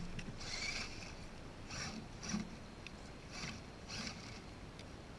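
RC rock-crawler truck's electric motor and gearbox whining in about five short bursts as it crawls up over a rock, tyres scrabbling.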